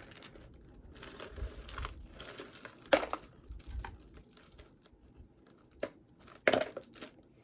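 Rustling and crinkling from jewelry being handled and set aside, with a few sharp clicks, the loudest about three seconds in and another pair near the end.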